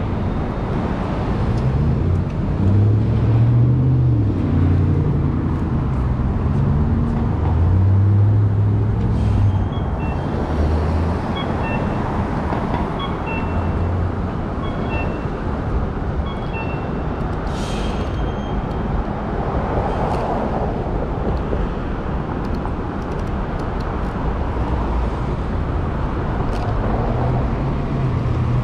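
City street traffic at an intersection: a steady mix of vehicle engines and tyres, with a heavier low engine rumble in the first few seconds. A series of short, high electronic beeps sounds in the middle.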